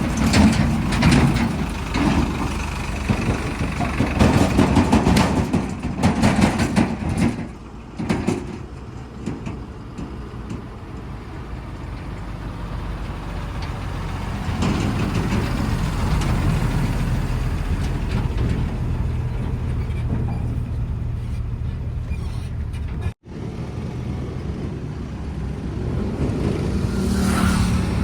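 Heavy diesel engine of a tractor or backhoe running steadily, louder and rougher in the first several seconds, then settling to an even hum; a brief break in the sound late on.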